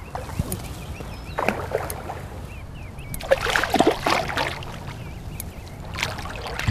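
Splashing and sloshing in shallow water in three irregular bursts, the loudest about halfway through, made by a hooked carp thrashing near the bank as it is landed.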